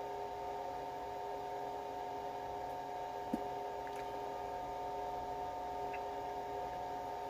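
Steady electrical hum made of a few held tones over a low background hiss, with one brief soft tick about three and a half seconds in.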